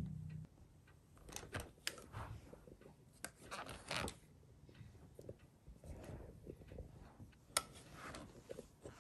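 Faint, intermittent rustling and scraping with a few light clicks, as of something being handled close to the microphone.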